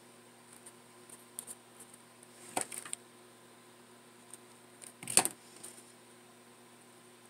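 Hands handling satin ribbon petals and a hot glue gun: soft rustles and small clicks, with two louder clatters about two and a half and five seconds in, the second the loudest, over a faint steady hum.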